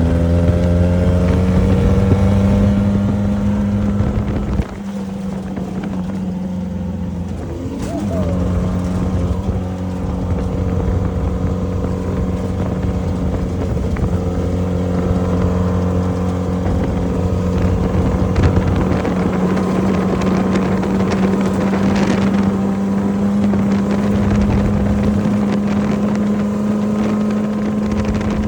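Off-road race vehicle's engine under way. Its revs climb slightly, then it drops off abruptly about five seconds in as the throttle is lifted. It comes back in around eight seconds and holds steady revs to the end.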